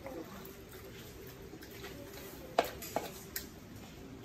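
Sliced pork being stirred and turned in a large metal wok, with a few sharp knocks of a utensil against the pan, the loudest about two and a half seconds in.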